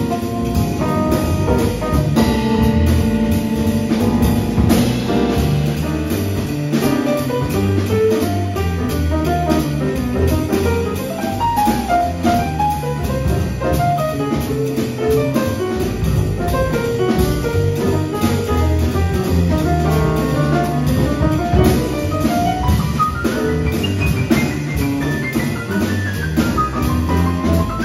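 Live jazz combo playing, led by the grand piano over upright bass and a drum kit with cymbals.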